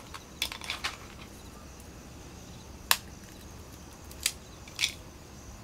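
Brittle shells of velvet tamarind (trái xay) cracked open and picked off by fingers: a quick run of small crackles about half a second in, then three separate sharp cracks.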